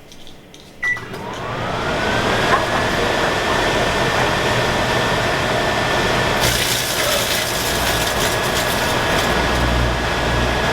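Microwave oven starting with a keypad beep, then running with its hum and fan rising to a steady tone. A foil-lined chip bag inside crackles and sizzles as it shrinks and arcs with sparks, the crackling thickening about six seconds in.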